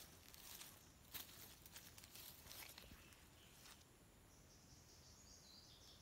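Faint footsteps rustling and crunching through dry leaf litter and undergrowth, stopping just before the halfway point, with a faint high insect trill in the background.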